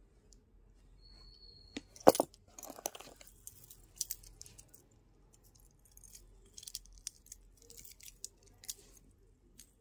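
Handling noise of metal jhumka earrings being picked up and moved on a cloth: scattered small clicks, rustles and light clinks, with one sharp knock about two seconds in.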